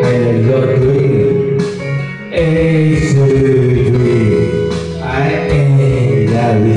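Man singing a slow ballad into a karaoke microphone over a loud backing track with guitar, pausing briefly about two seconds in.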